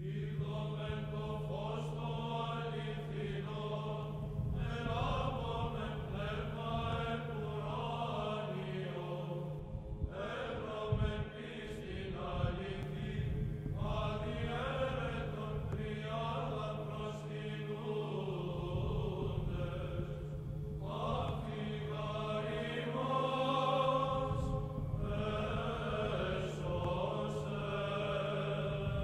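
Soundtrack music: a chanted vocal melody sung in phrases a few seconds long over a steady low drone.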